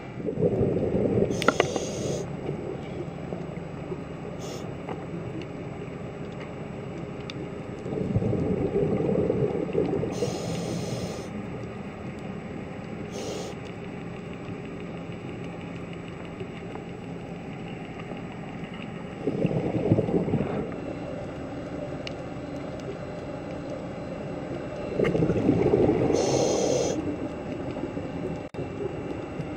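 A scuba diver breathing through a regulator underwater: four bubbling exhales in surges several seconds apart, with short hissing inhales, over a faint steady hum.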